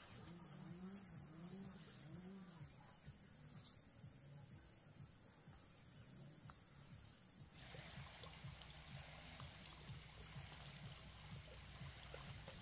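Insects trilling steadily in a faint, high-pitched chorus. About halfway through, a louder, rapidly pulsing insect trill joins in at a slightly lower pitch.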